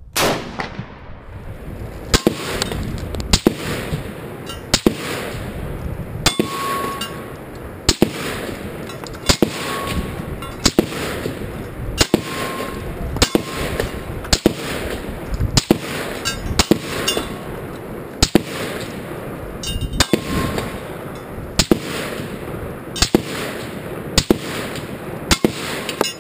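PTR 91 .308 battle rifle fired at a steady pace, about one shot every second and a half, heard from near the targets. Several shots are followed by the short ring of a struck steel plate.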